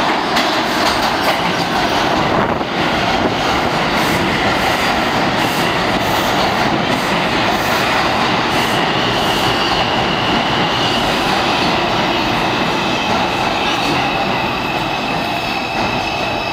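R142 subway train pulling into an underground station: steady, loud noise of steel wheels on rail with clicks over the rail joints. About halfway through, a high squealing tone sets in as the train slows.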